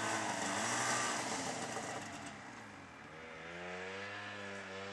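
Snowmobile engine revving: its pitch wavers, then climbs about three seconds in and holds steady at high revs.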